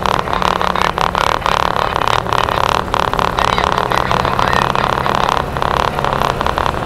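Modified UAZ off-roader on 50-inch tyres driving steadily on wet asphalt. The engine runs evenly under a constant tyre hum, with many small knocks and rattles.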